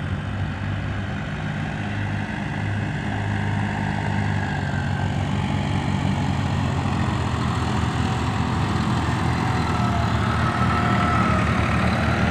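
New Holland tractor diesel engine running steadily, getting a little louder towards the end.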